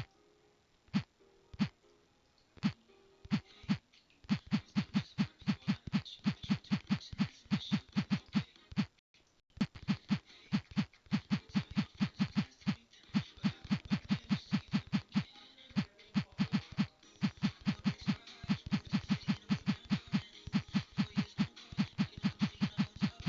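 A rapid series of short, low thumps, each with a click on top, about three to four a second in runs. They start sparse, speed up about four seconds in, and break off briefly near nine seconds.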